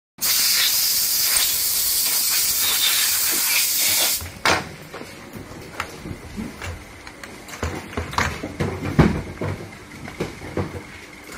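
A loud, steady hiss of compressed air from a blow gun for about four seconds, cutting off suddenly. After it come light clicks, knocks and rubbing as the plastic RC truck body is turned over and wiped with a cloth.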